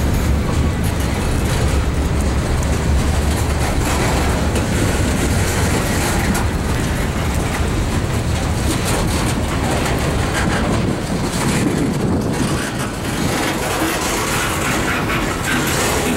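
Freight cars (tank cars and a loaded centerbeam flatcar) rolling past close by: a steady rumble of steel wheels on rail, with clickety-clack over the rail joints. The deep part of the rumble is heaviest for the first few seconds, then eases.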